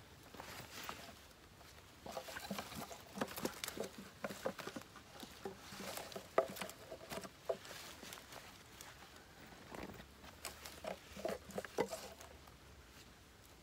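Irregular patter and rustling of live fish, tilapia and small snakeskin gourami, flapping as they are handled and emptied from a fish trap. It comes in uneven clusters of quick taps, busiest in the first half and again near the end.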